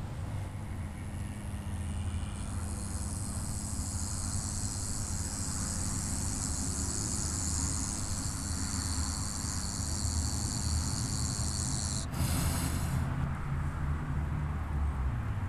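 Steady outdoor background noise: a low rumble with a high hiss over it. About twelve seconds in there is a brief rush, and the hiss is fainter afterwards.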